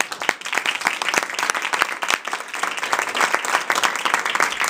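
Audience applauding: many hands clapping steadily at the end of a speech.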